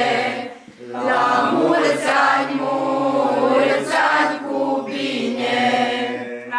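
A mixed group of women, girls and young men singing a traditional folk song together without instruments, in long held phrases with a short breath pause about a second in. The singing ends near the end.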